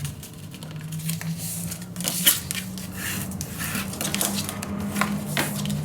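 Scored cardstock being folded down and pressed flat by hand: a run of irregular sharp taps and clicks with paper rustling, over a steady low hum.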